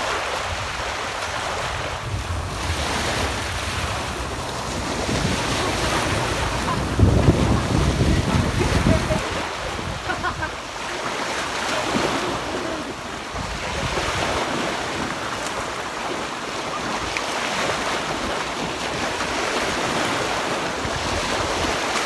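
Small sea waves breaking and washing up over the shallows of a sandy beach, the surf swelling and ebbing. Wind noise on the microphone adds a low rumble, heaviest about seven to nine seconds in.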